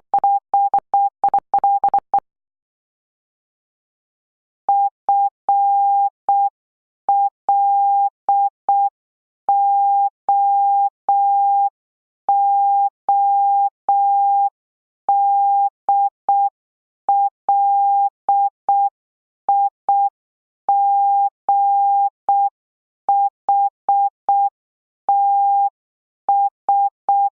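Morse code practice tone, a single steady beep keyed on and off in dots and dashes. A quick run fills the first two seconds, and after a pause of about two and a half seconds a slower, evenly spaced run of dots and dashes follows.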